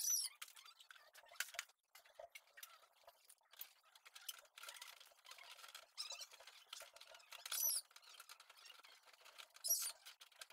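Plastic headlight assembly of a Toyota Corolla Altis being handled and worked at its mounting: scattered clicks and short high squeaks. The loudest squeaks come right at the start, about three quarters of the way through and near the end.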